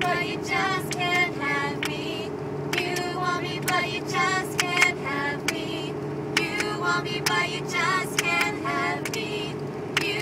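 Vocal warm-up inside a moving vehicle: short, high sung glides and wavering trills, broken into quick phrases, over the steady hum of the engine and tyres at highway speed.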